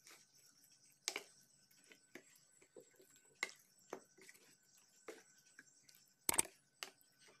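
Steel ladle stirring thick adai batter in a plastic bowl: faint scattered clicks and taps as the ladle works the batter and touches the bowl, with one louder knock about six seconds in.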